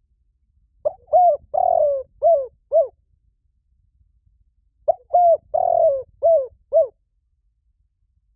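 Spotted dove cooing: two phrases of five notes each, about four seconds apart, with a longer third note in each phrase. It is a lure call used to draw in wild doves.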